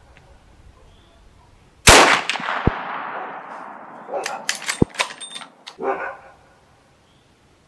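One loud rifle shot from a Marlin 1895 lever-action in .45-70 Government, firing a Hornady 250-grain MonoFlex load, about two seconds in, with an echoing tail. A couple of seconds later the lever is worked: metallic clacks and clicks of the action cycling, with a brief high metallic ring as the spent case is ejected.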